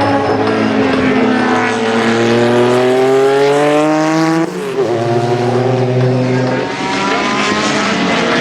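Group C sports-prototype race car engine at full throttle. It rises in pitch for about three seconds and drops sharply at an upshift about four and a half seconds in. It shifts again near seven seconds and climbs once more.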